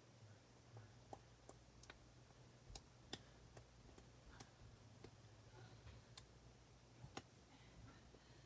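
Near silence with about ten faint, sharp clicks at irregular intervals, small handling sounds from adding nail polish to a slime mixture, over a faint steady low hum.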